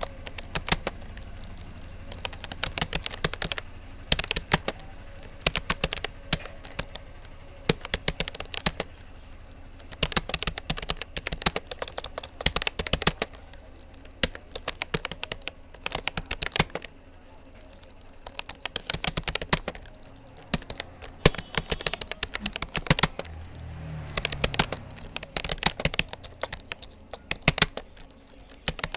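Rapoo computer keyboard being typed on at a steady practice pace: quick runs of key clicks separated by short pauses, as words are typed during a timed typing test.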